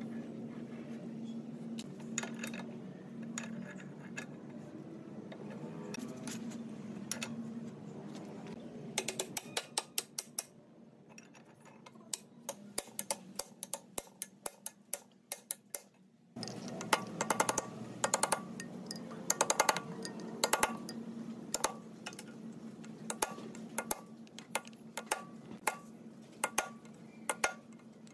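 Sharp metallic clicks in quick runs, a few a second, from tools working the large hex nut on the flywheel hub of a D15 diesel engine.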